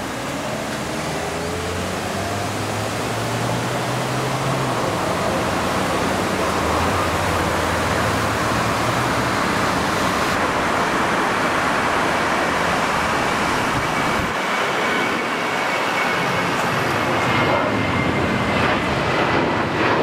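Twin CFM56 turbofans of a US Navy P-8A Poseidon at takeoff power: a steady jet noise that grows louder as the aircraft rolls and lifts off. A high fan whine comes in about halfway and sinks slightly in pitch toward the end.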